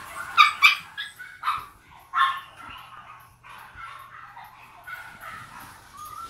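A French bulldog puppy gives several short, high yips and barks in the first couple of seconds, then softer high whines and whimpers.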